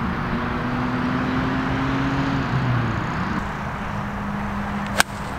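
An iron striking a golf ball: one sharp click near the end, over a steady low engine hum in the background.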